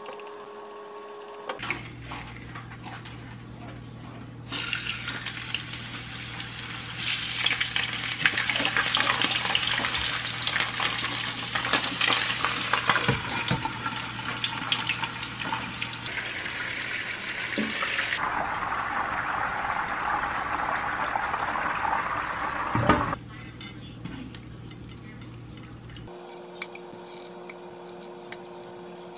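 Whole trout frying in oil in a frying pan, a loud steady sizzle that comes in a few seconds in, rises about seven seconds in and stops abruptly just after a sharp clatter of pan or utensil about 23 seconds in. Before and after it, only a low kitchen hum.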